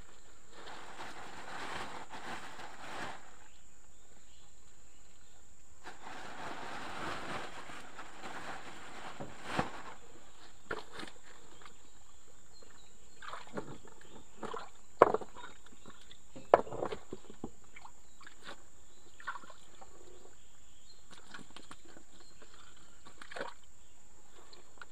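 Muddy ditch water sloshing and splashing as a man gropes in it by hand for fish: two longer stretches of sloshing, then scattered sharp splashes, the loudest about fifteen and sixteen and a half seconds in.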